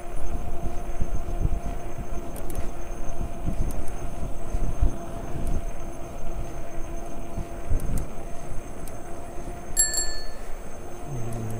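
Bicycle riding on a paved trail: wind buffeting the camera microphone over tyre rumble, with a faint steady hum. A single short bell ring about ten seconds in.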